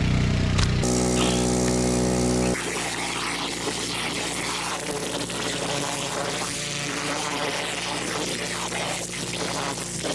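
Gas engine of a high-output pressure washer running steadily. About two and a half seconds in, the sound drops and turns hissier, with the engine tone fainter underneath.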